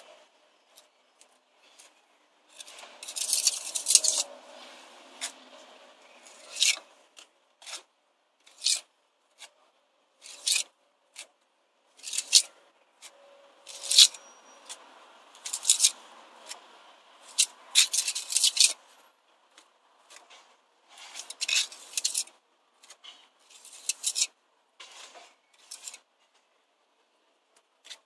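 Steel pointing tool scraping mortar against brick as mortar is pressed and struck into the joints of brickwork, in short, irregular scraping strokes with brief pauses between them.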